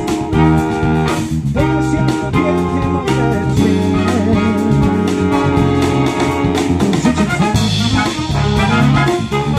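Military big band playing an instrumental passage: saxophone section and brass over a rhythm section, with no singing.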